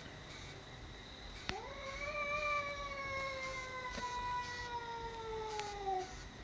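A cat yowling: one long drawn-out call that rises quickly at the start and then slowly sinks in pitch over about four and a half seconds, one of two cats calling at each other in a standoff.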